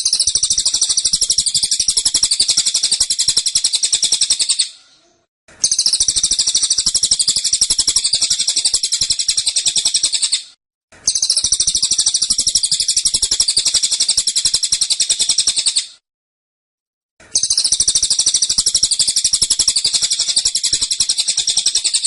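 Cililin songbird singing its fast, dense 'tembakan' song: long bursts of very rapid high-pitched notes, four bursts separated by short silent gaps.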